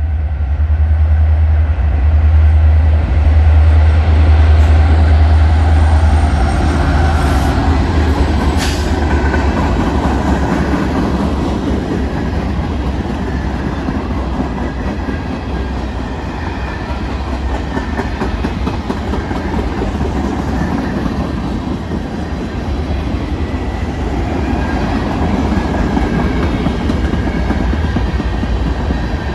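Norfolk Southern freight train of gondola cars rolling past, its steel wheels running on the rails as a steady noise. A deep low hum is strongest in the first six seconds, and there is one short sharp clank about nine seconds in.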